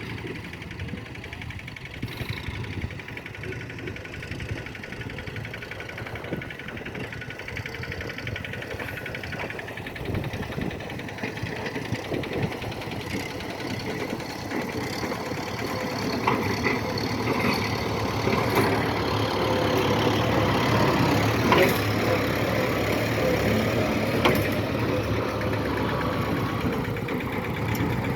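Kubota tractor's diesel engine running steadily while ploughing, growing louder over the second half, with a few sharp knocks near the loudest part.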